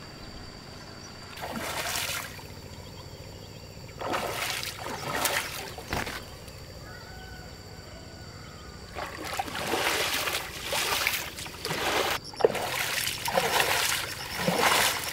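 Pond water splashing and sloshing in bursts: once about two seconds in, again for a couple of seconds around the middle, then almost without a break through the last six seconds.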